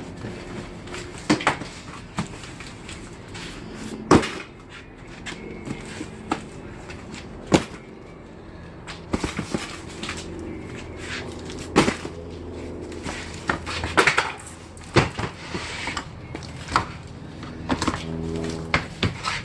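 Boxes and their contents being handled and shifted: irregular knocks, clatters and rustling. A steady low hum runs underneath.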